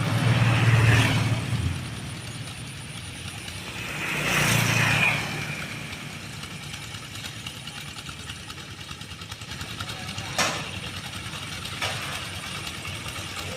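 Old tractor engine running steadily with a low drone, swelling louder twice in the first five seconds. Two sharp knocks come later, a second and a half apart.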